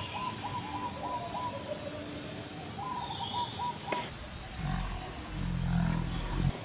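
Wild animal calls: a rapid run of repeated chattering notes at the start and again about three seconds in, then a loud low rough call near the end.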